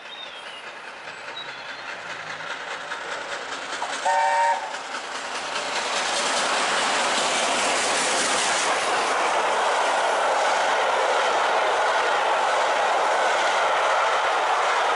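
LNER A4 Pacific steam locomotive No. 60009 approaching at speed, sounding its chime whistle briefly about four seconds in, a chord of several notes. It then passes close by, and the rush of the locomotive and coaches over the rails grows loud and steady.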